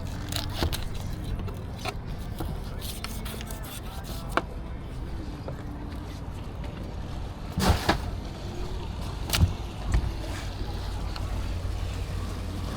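Boat engine running steadily as a low hum, with a few sharp knocks over it, the loudest a little under eight and about nine and a half seconds in.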